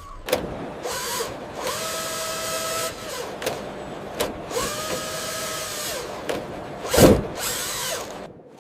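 Small electric motor of a radio-controlled model whining up to speed, holding steady and winding down, twice, with clicks in between and a sharp knock about seven seconds in.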